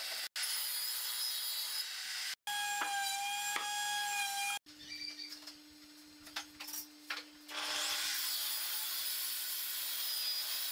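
Table saw cutting pine board across several quick edits: a rasping cut, then the blade's steady high whine, then a quieter stretch of light scratches over a low hum, before the rasping cutting noise returns.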